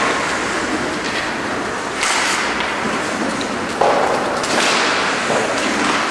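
Ice hockey play echoing in an indoor rink: skate blades scraping the ice and sticks knocking the puck, with a sharp knock about two seconds in and a louder one just before four seconds.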